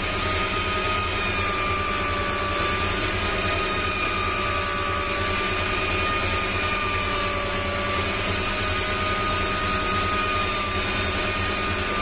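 Jeweller's handheld rotary tool running steadily with a high whine that wavers slightly in pitch, its small burr working the surface of a gold pendant.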